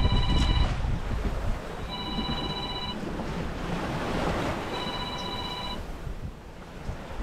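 Mobile phone ringtone playing through a Bluetooth speaker: three electronic rings, each about a second long and about two and a half seconds apart, sounding as a wake-up call. Wind and sea noise run underneath.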